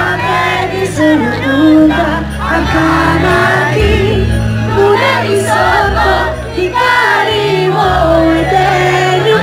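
Live band music with a singer: a sung melody over long held bass notes.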